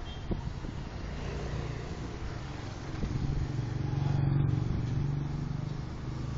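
Motorcycle engine running with road noise, growing louder to a peak about four seconds in as a motorcycle passes close by, then easing.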